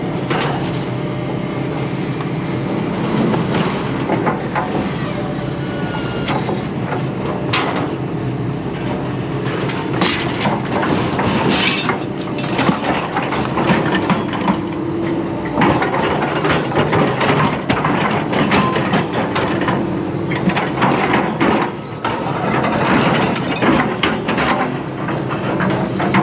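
A vehicle engine running steadily while loose scrap metal on a trailer clanks and rattles with irregular knocks throughout.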